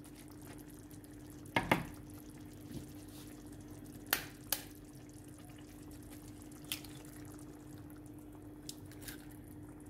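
A wooden spoon tapping and clicking against a ceramic tajine dish as hollows are made in the sauce for the eggs. There are a handful of separate light taps, two close together about one and a half seconds in and two more about four seconds in, over a steady low hum.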